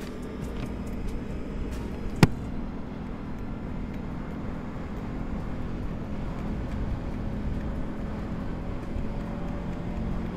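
CFMoto CForce 800 ATV's V-twin engine running steadily while riding. One sharp click comes about two seconds in.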